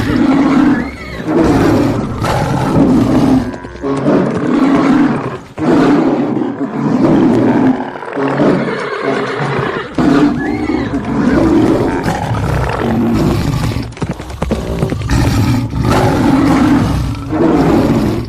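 Animal roaring calls, repeated about once a second, with music.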